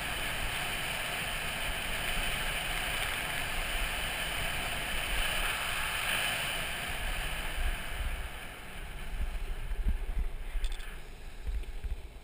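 Wind rushing over the microphone and the rumble of wheels rolling fast on asphalt during a high-speed downhill run on a streetluge or downhill board. The rush eases and comes in gusts about two thirds of the way through.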